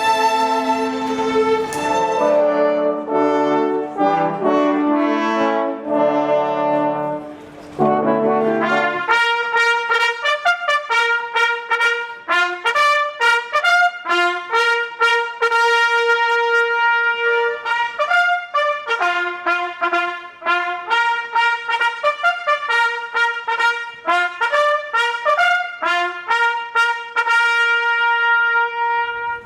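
Classical orchestral music led by brass, trumpets prominent. Held chords give way, after a short break about eight seconds in, to a fast passage of short repeated notes.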